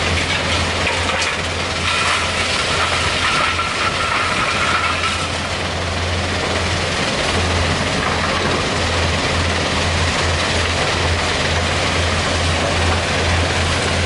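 Kobelco hydraulic excavator's diesel engine working under load, a steady low drone that pulses, under a dense mechanical noise. A higher whine comes in about two seconds in and fades out a few seconds later.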